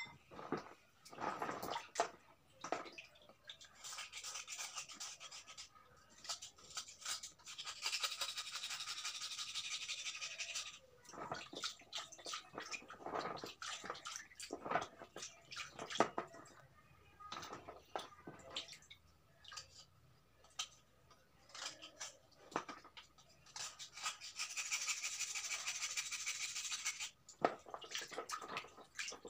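A piece of soft slate stone scrubbed and rubbed by hand in a basin of water. There are three longer stretches of fast, scratchy rubbing, with small splashes and drips in between.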